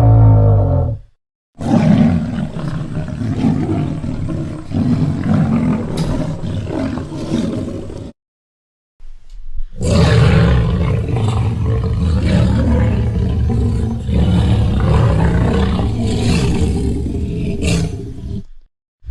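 Theropod dinosaur sound effect: two long, low, rumbling calls of several seconds each, with a short silence between them. The tail of a previous call fades out at the very start.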